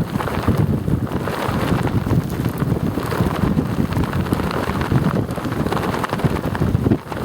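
Strong wind buffeting the microphone while loose wind pants flap rapidly in the gusts, a dense fluttering rush that dips briefly near the end.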